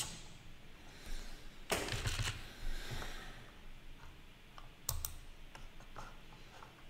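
Scattered clicks and taps of a computer mouse and keyboard, with a louder knock about two seconds in and another about five seconds in.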